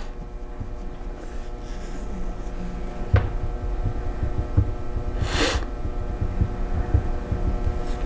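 Steady electrical hum under irregular low thumps and rubbing of a clip-on lapel microphone against a shirt, with one short breath or sniff about five seconds in.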